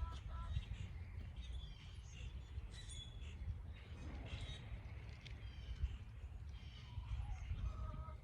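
Several birds chirping and calling over a steady low rumble. Near the start, and again from about seven seconds in, a lower call repeats in a series of short notes.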